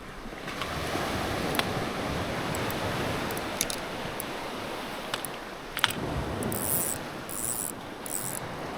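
Sea waves washing steadily, with a few sharp clicks and three short high hisses near the end.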